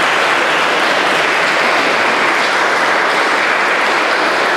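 A few dozen people clapping steadily in a church.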